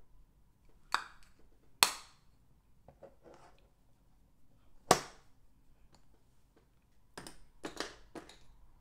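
Sharp taps and clicks from a makeup brush and powder compact being handled: single taps a second, two seconds and five seconds in, then a quick run of four near the end.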